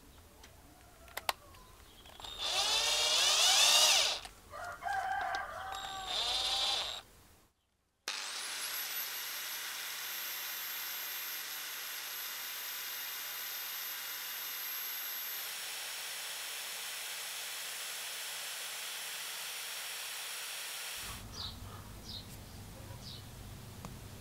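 A rooster crowing loudly, then a short burst of clucking. Then an electric drill winds up and runs steadily for about thirteen seconds, spinning a disc mounted on a bolt in its chuck, and stops abruptly.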